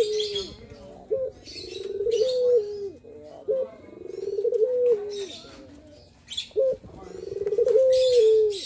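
Male Barbary (ringneck) dove cooing in its display call, repeated about every two to three seconds: each coo is a short note followed by a long rolling note that rises, holds and falls away. Small birds chirp in high bursts between the coos.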